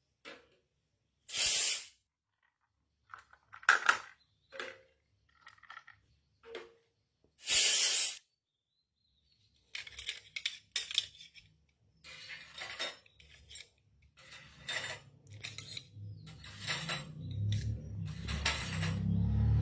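Miniature steel toy kitchenware clinking and clattering as the small pieces are handled. It starts as scattered taps with two short loud bursts in the first half, then turns into denser, near-continuous clatter from about halfway.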